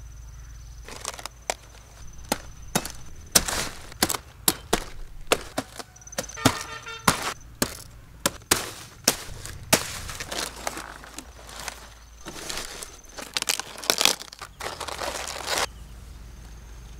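Repeated sharp chopping strikes at an irregular pace of about two a second, stopping a couple of seconds before the end.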